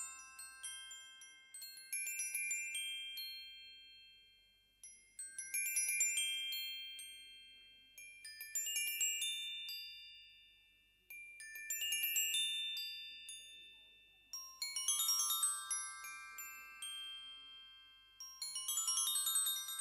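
Tinkling, glockenspiel-like chime music: a flurry of quick, high bell notes about every three seconds, each flurry ringing on and fading out before the next.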